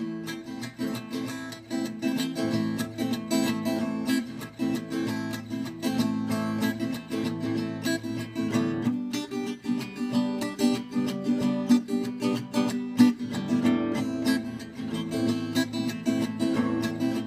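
Acoustic guitar strummed in a fast, steady rhythm, an instrumental passage with no singing.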